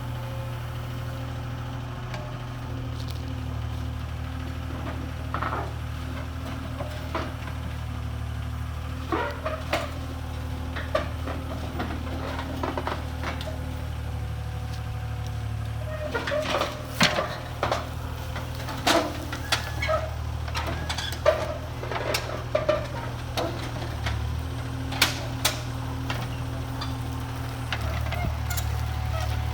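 Mini excavator engine running steadily, with a scatter of sharp knocks and clanks that come thickest in the second half.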